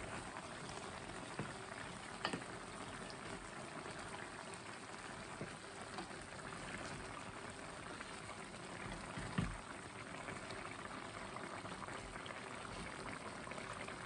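Chicken curry bubbling at a simmer in a stainless pan while a wooden spoon stirs it, with a sharp knock of the spoon against the pan about two seconds in and another about nine seconds in.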